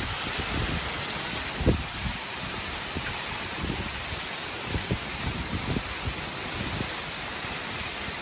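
Heavy rain falling steadily, a dense even hiss, with irregular short low thumps against the microphone, the loudest about one and a half seconds in.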